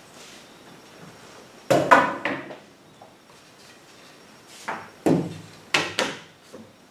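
Chalkboard drawing tools knocking: a large blackboard compass being put down and a long wooden ruler picked up and set against the chalkboard. A quick cluster of clacks about two seconds in, then several more knocks near the end.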